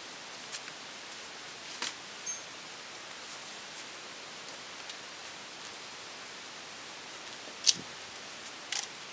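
Steady hiss with a few scattered sharp clicks and knocks, the loudest about three-quarters of the way through and two more near the end.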